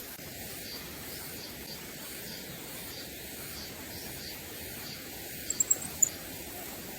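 Steady rushing hiss of a river flowing, with a faint high chirping repeating about three times a second and a few sharp high ticks about five and a half seconds in.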